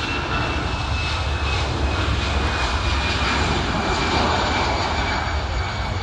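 Jet engines of an easyJet Airbus A320-family airliner at takeoff thrust during its takeoff roll: a steady, loud roar with a high whine that slowly drops in pitch.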